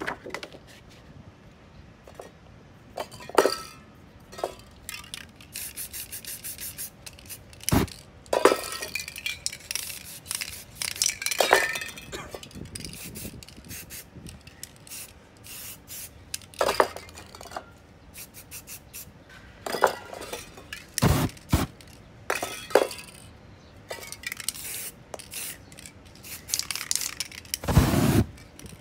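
Aerosol spray-paint cans hissing in short bursts onto a canvas, with metal cans clinking and clattering as they are handled. Near the end comes a loud rush of flame as the wet paint is set alight.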